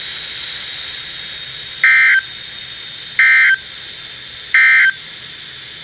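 Three short, loud bursts of Emergency Alert System SAME data tone, each about a third of a second long and about a second apart, over a steady radio hiss. This is the end-of-message code that closes the alert.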